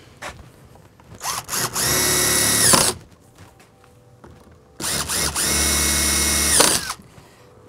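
Cordless drill with a step bit boring quarter-inch holes through PVC pipe end caps, run twice, each time for about a second and a half. The motor whine comes up in a couple of short blips, holds steady through the cut, then winds down.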